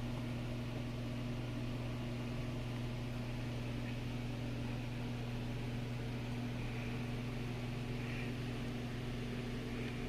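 A steady low electrical hum with a faint hiss, from a motor or appliance running in the shop.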